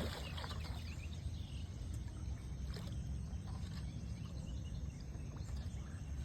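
Steady low rumble of open-air background noise, with faint, scattered short high chirps.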